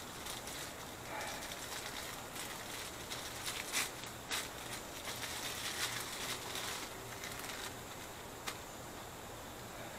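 Thin plastic bag crinkling and rustling as a small compressor-pump part is unwrapped by hand, with a few sharp clicks of the part and packing being handled.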